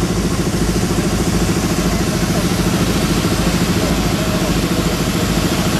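Motor engine running steadily with a fast, even low throb.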